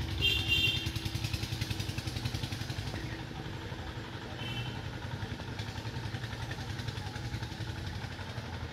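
An engine running steadily with a rapid, even beat, loudest in the first second, with two brief high-pitched tones, one near the start and one about four and a half seconds in.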